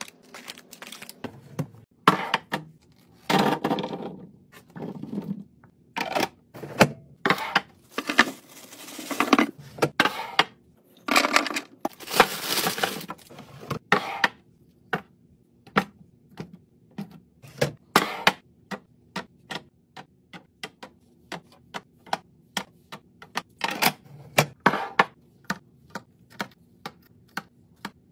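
Fridge restocking: items and containers being handled and set down on fridge shelves, a rapid run of sharp clicks and clacks, with a few longer rustling stretches in between.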